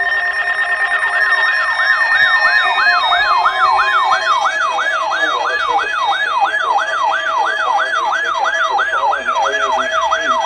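Weather-alert radio's electronic siren alarm, sweeping up and down about two and a half times a second from about a second in, over steady electronic tones. It is the sign that the receiver has been set off by the weather radio test alert.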